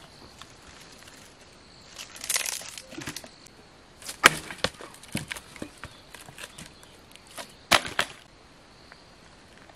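Freshly split firewood cracking and knocking as it is chopped and pried off a log: a crackle of splintering wood about two seconds in, a sharp crack about four seconds in followed by several lighter knocks, and another crack near the end.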